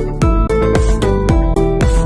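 Background music with a steady beat and plucked guitar notes.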